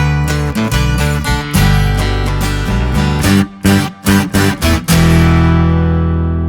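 Guitar music: strummed chords, then a few short sharp stabs with brief gaps in the middle, ending on a final chord that rings on and slowly fades.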